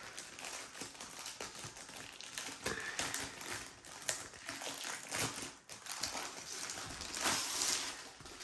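Plastic dust bag crinkling and rustling as hands work at it around a rolled canvas, with small clicks and taps, and a denser rustle near the end.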